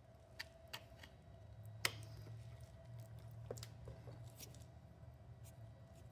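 A few faint, scattered metal clicks and scrapes as a screwdriver pries at a stuck part on a 1985 Honda XR600R engine, the sharpest click about two seconds in. The part is hanging up on O-rings inside it.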